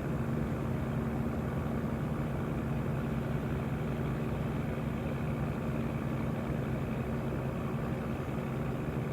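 A heavy engine running steadily: an even low drone with a constant hum that neither rises nor falls.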